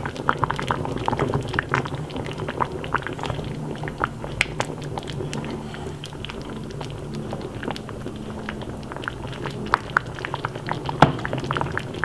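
A pot of thick vegetable soup simmering, bubbles popping irregularly over a steady low hum.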